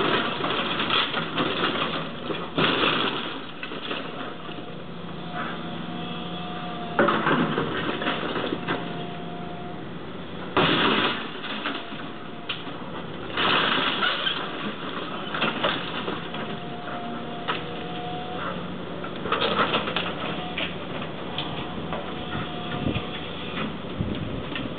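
Excavator demolishing a wooden house: the machine's engine runs steadily under a continuous clatter of breaking timber and falling debris, with several loud crashes spread through.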